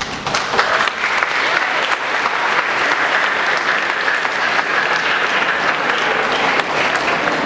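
A large audience applauding: many hands clapping in a steady, dense ovation that breaks out suddenly at the end of a speech.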